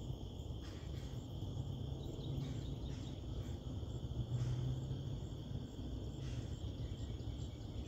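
Crickets chirring in a steady outdoor chorus, a continuous high-pitched trill, over a low rumble.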